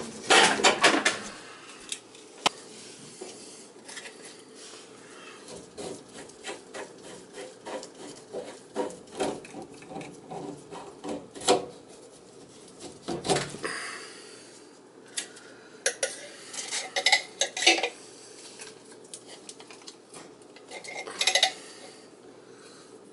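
White PVC drain fittings knocking and clicking as gloved hands handle them and push them together in a dry fit, in irregular clusters of sharp plastic clatter with quieter rubbing between.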